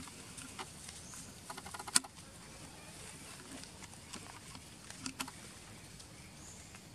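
Dry leaf litter crackling and clicking under moving feet: a quick run of crackles ending in one louder click about two seconds in, and two more clicks near five seconds, over a faint steady hiss.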